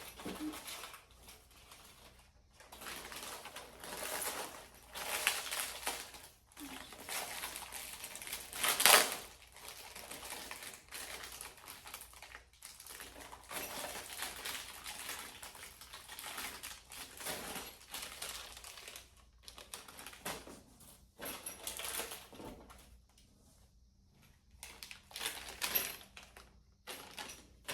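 Rummaging through bar stool assembly hardware and packaging while searching for a screw: irregular clicking, rustling and clattering of small parts, with one louder clatter about nine seconds in.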